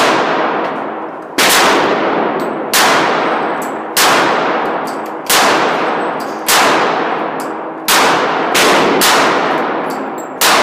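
A 9mm handgun fired nine times at a slow, steady pace, about one shot every second and a quarter. Each shot rings out in a long echo off the range's walls.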